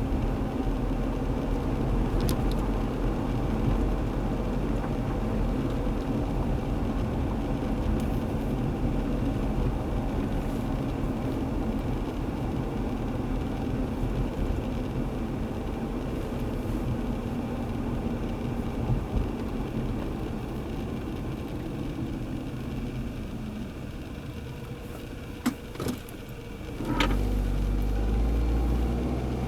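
2003 Nissan Altima 2.5S running, its four-cylinder engine and road noise going steadily. Near the end there are two sharp clicks, then the sound gets louder and deeper.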